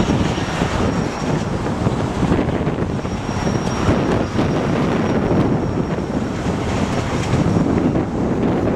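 Wind buffeting the microphone over a steady low rumble from the flatcars of a rail maintenance train rolling past.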